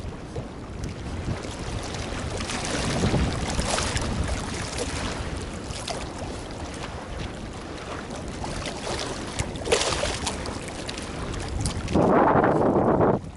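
Wind buffeting the microphone in a steady rush, with a louder gust near the end.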